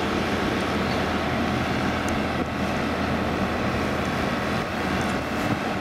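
Overhead gantry crane running as it lowers long rails with its lifting beams: a steady mechanical rumble and hiss over a low hum, with a few faint metallic ticks.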